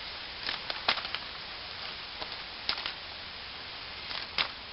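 Scattered short clicks and soft knocks as a hollowed pumpkin's stringy innards are pulled out by hand and dropped on the ground, over a steady hiss.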